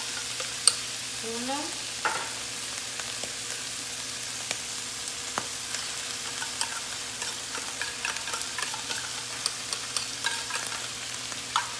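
Onions and tuna frying in oil in a pan, a steady sizzle, with scattered sharp clicks and scrapes of a utensil against the tin can as the tuna is spooned out.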